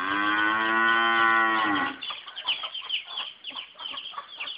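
A cow mooing once: one long, loud call of about two seconds that sags in pitch as it ends.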